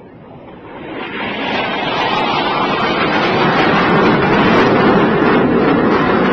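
Jet aircraft's engine roar building over the first couple of seconds as it approaches, then holding loud and steady.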